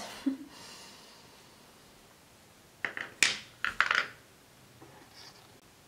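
Wooden colored pencils clicking and knocking against each other and a wooden tabletop as they are handled, a short cluster of sharp knocks about three seconds in.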